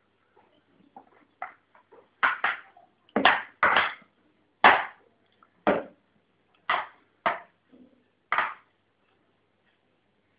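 A stick striking repeatedly: about ten sharp knocks, each with a short ring, irregularly spaced and some in quick pairs.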